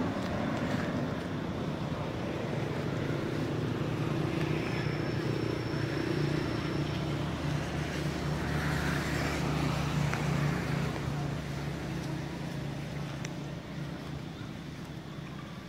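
A motor engine running with a steady low hum, growing fainter over the last few seconds.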